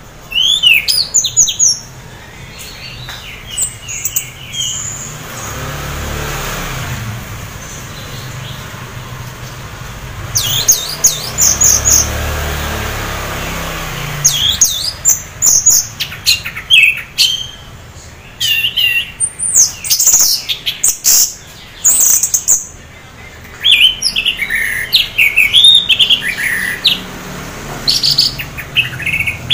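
Caged orange-headed thrush, half in breeding condition, singing in bursts of quick, sweeping chirps and whistled phrases with short pauses between them. It is the kind of song used to prompt other orange-headed thrushes to sing. A low rumble swells in the background twice around the middle.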